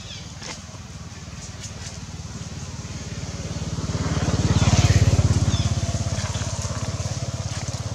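A motor vehicle's engine passing by, growing louder to a peak about five seconds in and then fading away.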